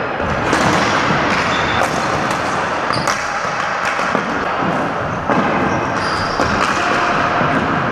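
Ball hockey play on a hardwood gym floor: a string of sharp clacks and knocks from sticks striking the ball, the floor and each other, with shuffling feet and brief high shoe squeaks. The sound echoes through the gymnasium.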